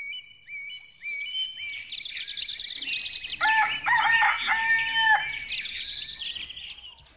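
Small birds chirping in quick repeated notes, with a rooster crowing once in the middle, the loudest sound here, before the birdsong fades out near the end.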